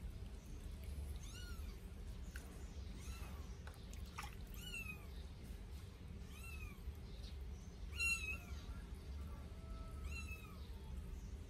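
Eight-day-old Sphynx kitten mewing as it is bathed: about six short, high-pitched cries, each rising and falling in pitch, a second or two apart. The loudest comes about eight seconds in.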